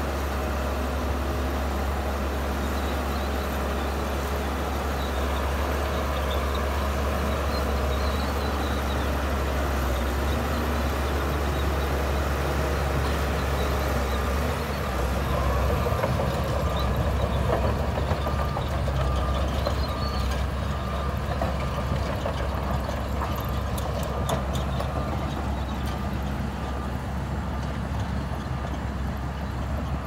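Shantui crawler bulldozer's diesel engine running under load as it pushes sand, louder around the middle, with track and blade noise. In the last third a faint repeated beep sounds at an even pace.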